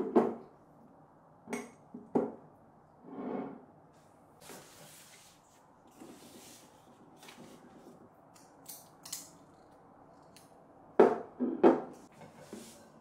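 Glass jar and glass food storage containers with snap-on lids being handled and set down on a table: scattered light knocks and clinks, with a louder pair of knocks near the end.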